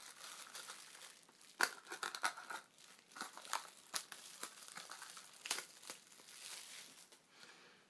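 Clear plastic film crinkling and tearing as it is cut and pulled off a small plastic measuring cup, with irregular sharp crackles.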